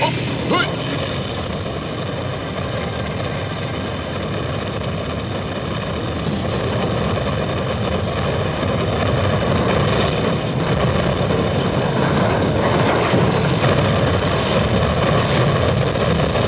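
A steady rushing rumble that slowly grows louder.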